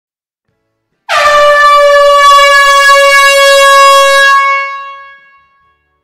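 Air horn sounding one long, steady blast in an enclosed hall, starting about a second in and dying away over about a second near the end.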